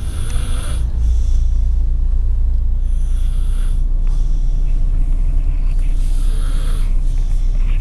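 A toddler snoring in sleep, a snore about every three seconds, over the steady low rumble of the car's road noise.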